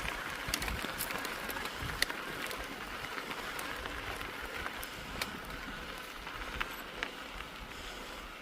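Mountain bike rolling over a rough trail: steady tyre noise with scattered sharp clicks and rattles.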